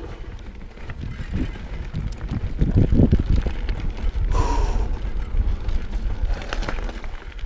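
Mountain bike rolling fast over a rocky gravel trail: tyres crunching and rumbling over stones, the bike rattling over the bumps, with wind buffeting the microphone. The rumble is loudest about three seconds in.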